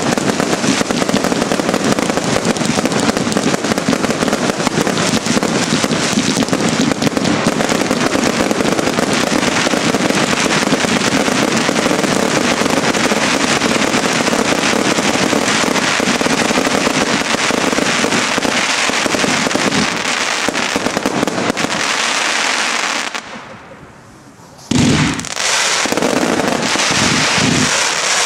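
Consumer New Year's firework batteries firing a dense finale barrage of rapid bangs and crackling star bursts. Near the end it briefly dies down, then a loud bang starts the barrage up again.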